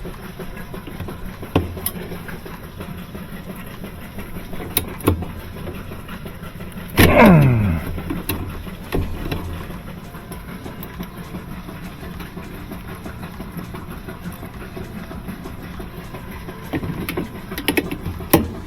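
A steady low mechanical hum with a few light knocks. About seven seconds in, a motor gives one short loud burst and winds down in pitch over about a second.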